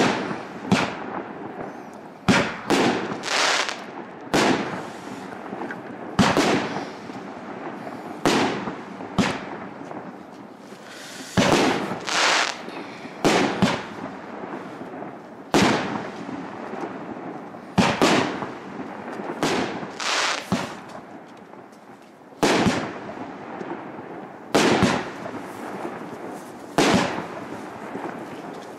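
Bum 'Ogon, batareya!' 13-shot, 1.2-inch consumer firework cake firing: shells launching and bursting in the air one after another. A sharp bang comes every second or two, often two in quick succession.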